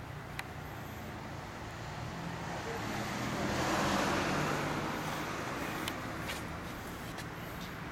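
A car passes on the street, its tyre and engine noise swelling to a peak about halfway through and then fading, over a steady low engine hum. A few faint ticks come near the end.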